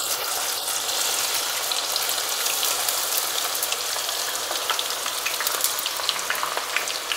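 Onions sizzling as they go into hot canola oil: a steady frying hiss with scattered crackles, which come more often in the second half.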